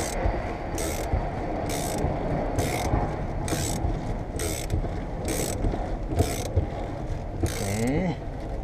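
Viper wire cut-out tool being ratcheted by hand, winding cutting wire through the windshield urethane around the back glass, with a ratchet stroke about once a second. A brief squeal of the wire comes about eight seconds in.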